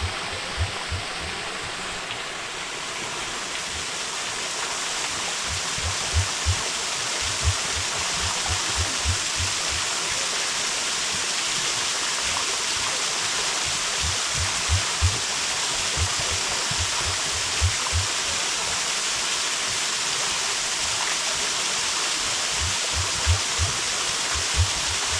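Stream water running steadily, a continuous rushing wash, with short low thumps coming in small runs every few seconds.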